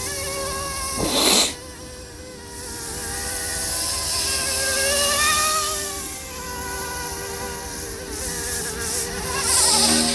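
Yu Xiang F119S MD500 electric RC helicopter in flight: a buzzing whine from its motor and rotors that rises and falls in pitch as it manoeuvres. A brief loud rush is heard about a second in.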